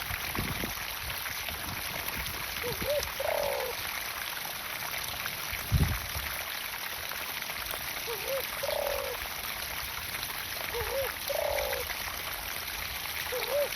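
Steady running water from a pump pouring into a garden pond. Four times, a short low call of two quick notes and a longer one sounds over it, and there is one dull thump near the middle.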